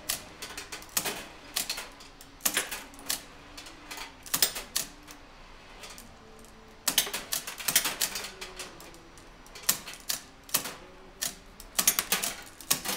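Vintage coin-operated shooting-gallery arcade game being played: its mounted gun and the cabinet's mechanism clack in quick clusters of sharp mechanical clicks, with short pauses between the clusters.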